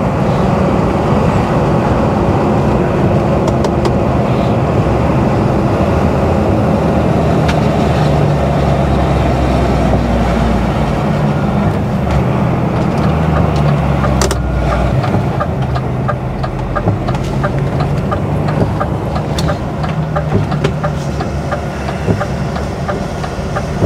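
Mercedes Actros lorry's diesel engine running steadily as heard inside the cab, with road noise. About fifteen seconds in the deep low rumble drops away as the truck eases off for a roundabout, and a light regular ticking comes through over the engine.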